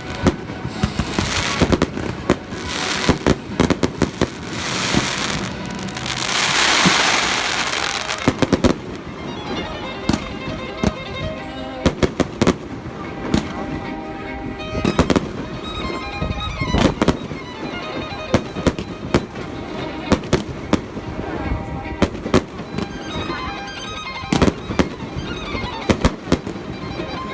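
Fireworks display: aerial shells bursting in rapid succession, many sharp bangs, with a long loud hissing shower about six to eight seconds in. Show music plays along under the bursts.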